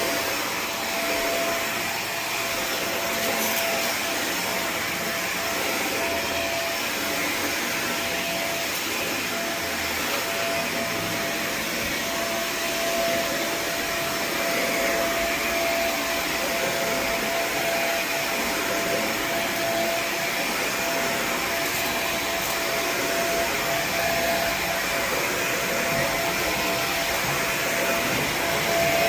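A 4-jet titanium carpet-cleaning extraction wand running under steady vacuum suction, a constant rushing hiss with a steady single tone sounding through it, the weird noise the owner says the new wand was making.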